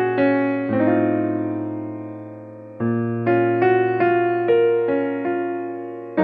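Background music: a keyboard plays a gentle melody of single notes over bass notes. Near the start, one chord is left to fade for about two seconds before the melody resumes.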